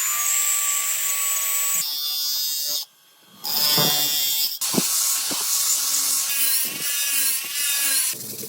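Power tools whining on metalwork in a string of short, abruptly cut clips, with a steady whine at first and a wavering pitch later on.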